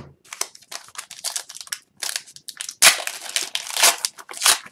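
Hockey trading cards being handled, then a card pack's wrapper torn open and crinkled: a run of crackles and rustles, loudest from about three seconds in.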